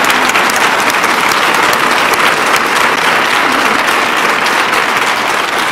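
Audience clapping steadily, a dense sustained round of applause.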